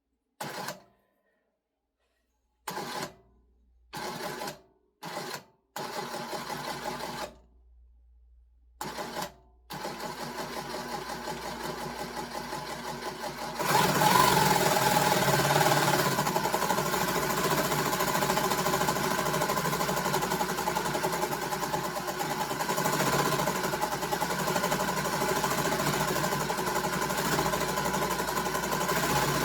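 JIASEW industrial sewing machine run from the foot pedal with the needle unthreaded, turning the belt-driven bobbin winder to fill a bobbin. It starts and stops in several short bursts, then runs continuously from about ten seconds in and gets louder and faster about halfway through, nearer full speed.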